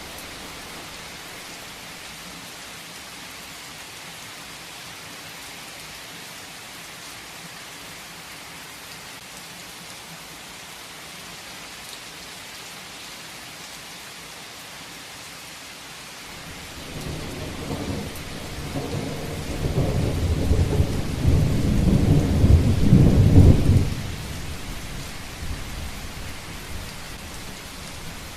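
Steady heavy rain with a long thunder rumble that starts a little past halfway, builds to a loud peak, then drops off sharply and trails away a few seconds before the end.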